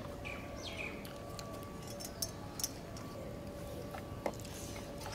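A few sharp clinks of bangles and steel dishes during a meal eaten by hand, two close together about two seconds in and one more near four seconds, over a faint steady hum. A bird chirps twice in the first second.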